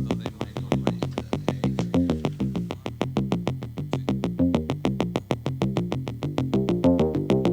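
Background music: a quick electronic synthesizer pattern of repeated short notes over a steady beat.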